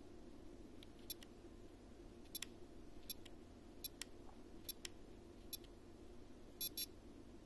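Sharp little clicks of the PRO58 receiver module's selector wheel being worked to step through its menu, about a dozen, many in quick pairs.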